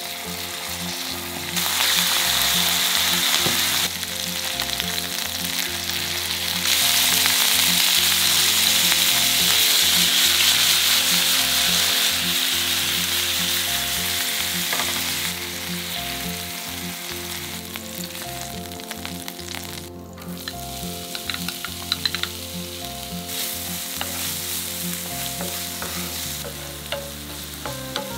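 Chicken thighs frying in oil in a nonstick pan: a steady sizzle, loud in stretches and quieter in others. Later, diced onion sizzles as a wooden spoon stirs it, with a few light clicks against the pan.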